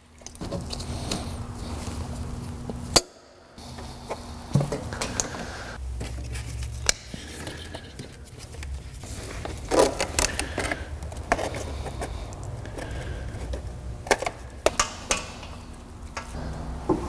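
Hands working on a car's coolant hose and radiator: scattered clicks, knocks and rattles of plastic and metal parts, over a low steady hum.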